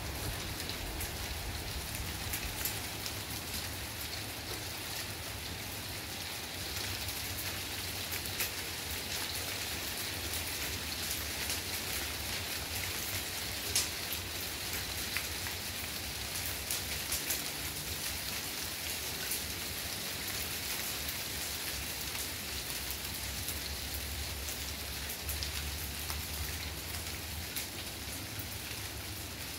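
Hailstorm: small hail falling steadily, pattering on broad shrub leaves and the ground as a dense hiss of tiny ticks, with a low rumble underneath at times.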